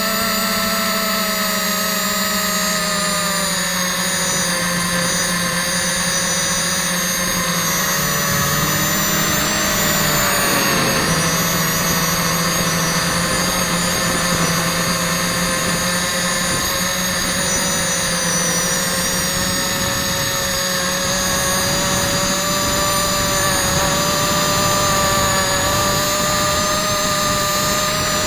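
Quadcopter's electric motors and propellers whining in flight, heard close up from the camera on the frame, several pitches rising and falling together with throttle; the pitch dips about eight seconds in and climbs back a few seconds later.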